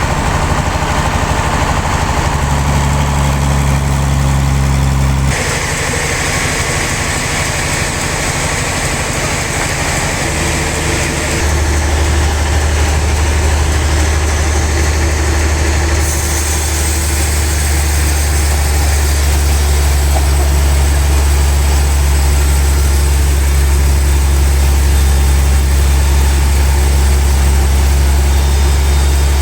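Sawmill machinery running steadily with a loud low drone like a heavy engine. The sound shifts abruptly about five seconds in and again about halfway through.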